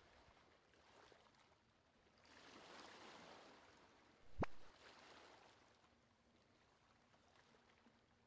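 Mostly quiet, with a soft whoosh-like sound effect and then a single sharp click about four seconds in, from slideshow animation effects.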